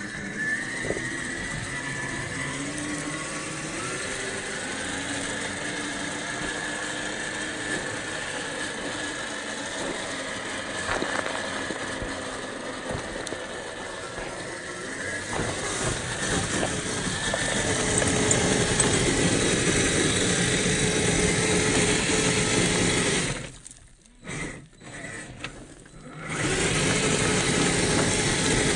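RC crawler's 550 electric motor and transmission whining as it drives over rocky ground, the pitch shifting with the throttle. It grows louder past the midpoint, nearly cuts out for a couple of seconds near the end, then picks up again.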